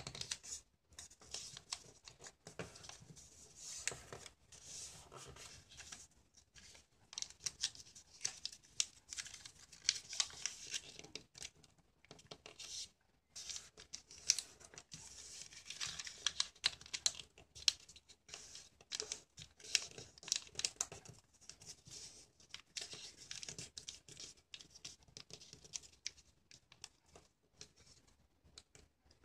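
A sheet of origami paper being folded and creased by hand: irregular crinkling and rustling, with sharp crackles as folds are pressed flat.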